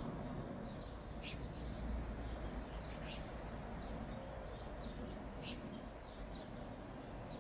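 Birds chirping, a short high call about every two seconds with fainter chirps between, over a steady low rumble and hiss.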